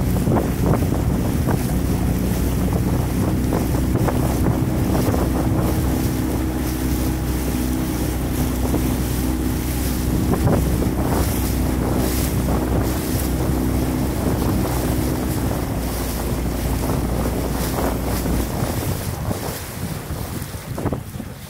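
Motorboat engine running steadily, with wind buffeting the microphone and water washing past the hull. The engine's low drone drops away near the end as the boat throttles back.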